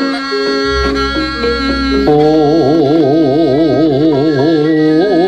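Javanese wayang kulit suluk with gamelan accompaniment: held instrumental notes move step by step over a deep low tone, then about two seconds in a man's voice takes up one long sung note with a wide vibrato that lasts nearly to the end.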